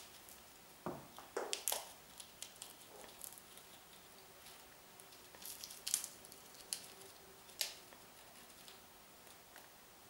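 Blue-and-gold macaw cracking and nibbling a nut held in its foot: irregular sharp cracks and crunches from its beak, the loudest a little before six seconds in.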